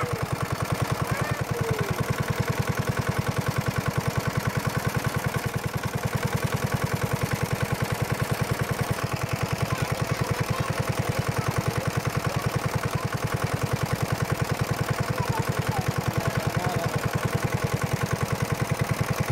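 Engine of a pond-draining water pump running steadily with an even, rapid chug. A few faint bird chirps sound over it near the start and again about halfway through.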